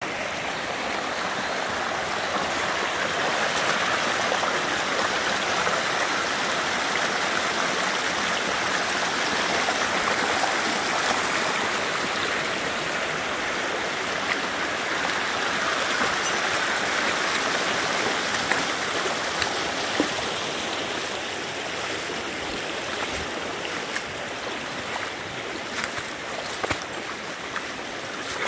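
Shallow mountain stream running over rocks and boulders, a steady rush of water that eases slightly in the last few seconds, with a few light clicks near the end.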